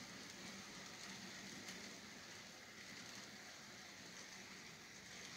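Faint, steady rolling of a model freight train's cars along the track, with a low hum and a few small ticks.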